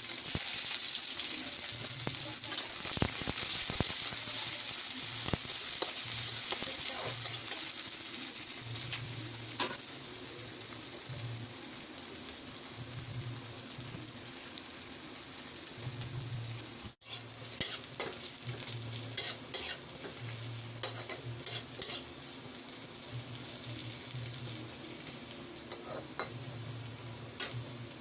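Food frying in hot oil in a pan, a dense sizzle that is loudest at the start and gradually settles. A spatula stirs and scrapes the pan, with sharp clicks scattered through the latter half.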